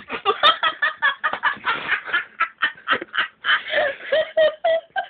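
Hard, breathless laughter in rapid choppy bursts of several a second, with a higher voiced cackle near the end.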